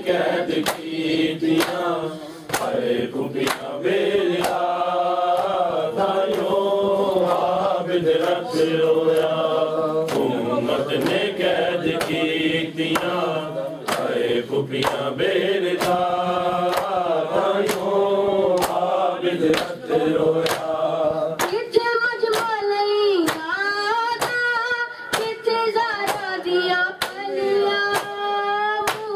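Men chanting a noha, a Shia lament for Muharram, while bare-chested mourners beat their chests (matam), the hand slaps keeping a steady beat. About 21 seconds in, a single higher voice leads the chant over the slaps.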